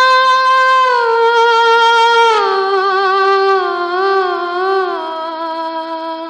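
A woman's voice sings a wordless vocalise in a film song. It holds a long high note, then steps down through lower held notes with a wavering vibrato, over a steady drone.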